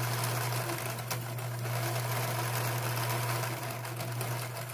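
Electric sewing machine running steadily, stitching through layers of cotton mask fabric, with a continuous motor hum under the needle's fast even clatter.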